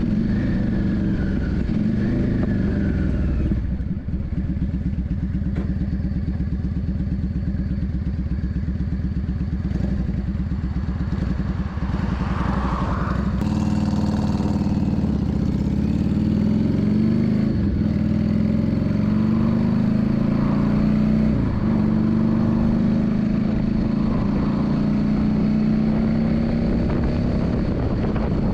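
Yamaha Drag Star 400's air-cooled V-twin engine running steadily at low revs, then revving up in pitch in steps, with brief drops near the middle of the second half like gear changes.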